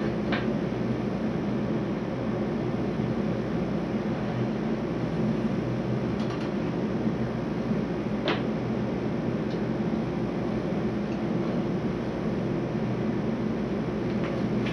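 A steady fan-like hum and hiss, with a few faint clicks, the clearest about eight seconds in.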